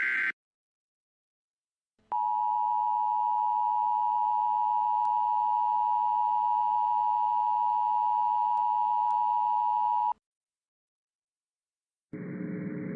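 Emergency weather alert attention tone: one steady electronic tone held for about eight seconds, starting about two seconds in and cutting off abruptly. Just before it, the tail of a short buzzy data burst from the alert's coded header ends in the first instant.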